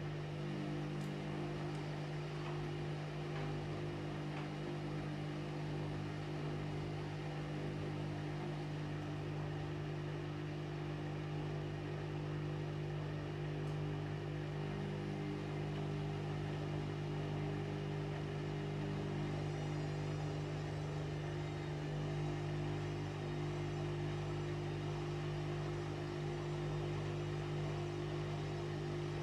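Washing machine running through its cycle: a steady motor hum with an even low drone that does not change.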